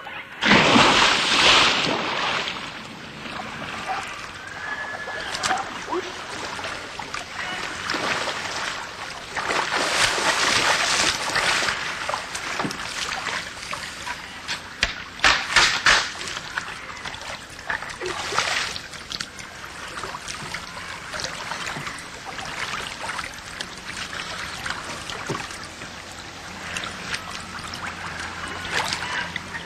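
Water splashing and sloshing. There is a loud splash right at the start, more bursts of splashing around ten, fifteen and eighteen seconds in, and quieter sloshing and trickling in between.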